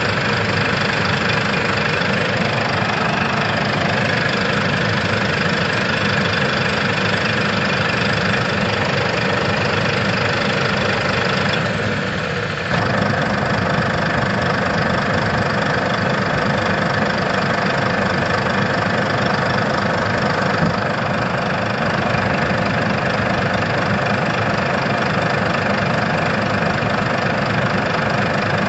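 Heavy diesel engine of a backhoe loader running steadily, with a short drop in level about twelve seconds in before it picks straight back up.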